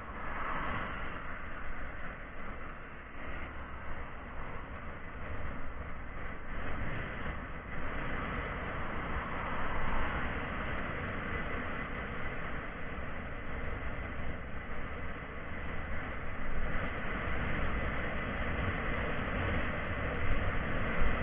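Steady rushing, rumbling noise with a faint, constant high whine above it, recorded through an E-Boda SJ6100 action camera's microphone. It sounds dull, lacking all treble.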